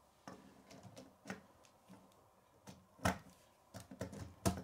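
Small plastic K'nex pieces clicking and knocking as a wheel assembly is pushed onto the model, with a few scattered clicks and two sharper ones about three seconds in and near the end.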